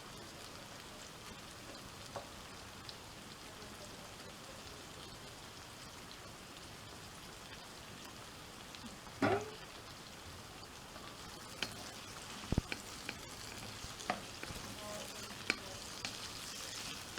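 Vegetables sizzling in a frying pan as they are stir-fried, a steady hiss. A spatula clicks and scrapes against the pan, more often in the second half, with one louder brief scrape about nine seconds in.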